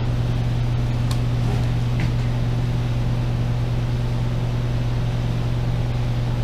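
Large shop drum fan running with a steady low hum. A couple of light clicks from parts being handled about one and two seconds in.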